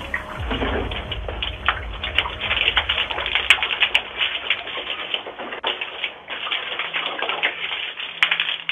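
Fuel, taken to be diesel, sloshing and splashing from a swung plastic canister onto a front door and porch floor: a dense, irregular spatter with a few sharper pops. Heard through a doorbell camera's microphone, thin, with no highs.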